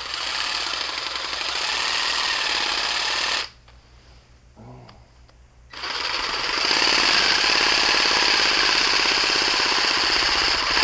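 Cordless WORX 20V jigsaw/reciprocating saw running as a homemade massage gun, driving a lacrosse ball back and forth through a reciprocating-saw adapter with a fast, steady hammering buzz. It stops about three and a half seconds in, then starts again, louder, around six seconds in and keeps running.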